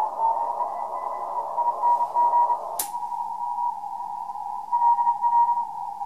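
Morse code (CW) signals from a Racal RA1218 HF receiver's speaker: on-off beeps at one steady pitch over receiver hiss. A little under three seconds in, a sharp click is followed by the hiss narrowing to a tight band around the beeps as a narrower filter cuts in.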